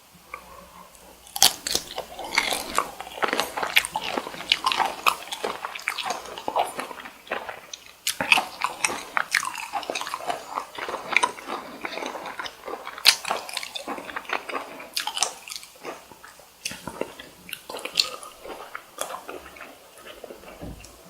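Close-miked biting and chewing of cooked cocktail shrimp, heard as quick, irregular clicks and snaps. It starts about a second and a half in.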